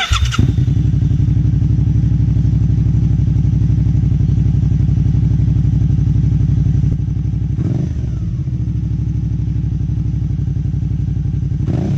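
Suzuki V-Strom 650's 645 cc V-twin running through an Arrow Race-Tech aluminium slip-on silencer, idling with a steady, even pulse. There is one short throttle blip about eight seconds in.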